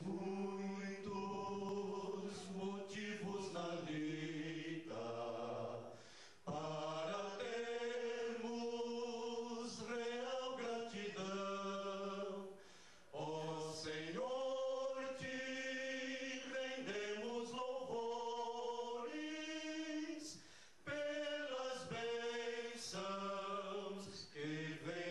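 Male vocal quartet singing together in harmony into handheld microphones, in long held phrases with brief breaks between them.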